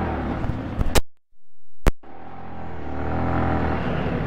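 Yamaha R15 V4's 155 cc single-cylinder engine revving up and down at low speed, heard from on board. The sound cuts out for about a second, just after the first second.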